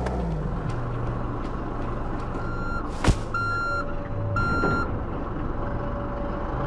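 JCB mini excavator's diesel engine running steadily, its note dropping just at the start. A reversing-type alarm beeps three times about a second apart near the middle, with a single sharp knock just before the second beep.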